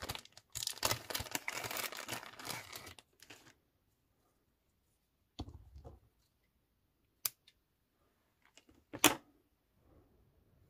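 Crinkly rustling of craft materials being handled for the first few seconds, then a few separate sharp clicks, the loudest about nine seconds in, as small scissors snip a length of white twine from its spool.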